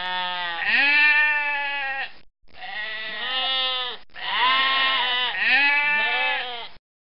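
Goats bleating: three stretches of long, wavering bleats whose pitch slides up and down, separated by short gaps, stopping suddenly near the end.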